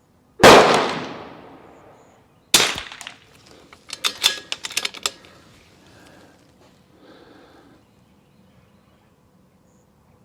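A single .22 LR rifle shot from a Desert Precision Gunworks RIM-X bolt-action rifle, ringing off over about a second. About two seconds later comes a sharp clack, then a quick run of clicks as the bolt is worked and the next round is chambered.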